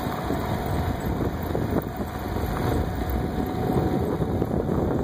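Wind buffeting a phone's microphone, an uneven low rumble that rises and falls in gusts.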